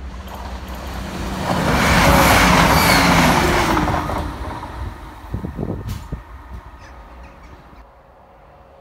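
A diesel multiple-unit passenger train passing close by at speed: its engine and wheel noise swell to a loud peak about two seconds in, drop in pitch as it goes past, and fade away, followed by a few sharp knocks from the wheels on the track.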